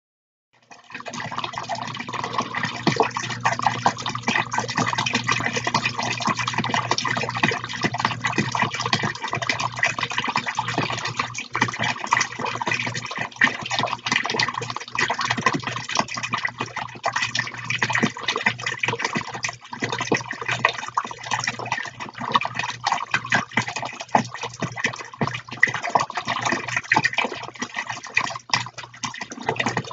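Small tabletop fountains' water jets splashing continuously back into their plastic tubs, a dense pattering of droplets over a steady low hum.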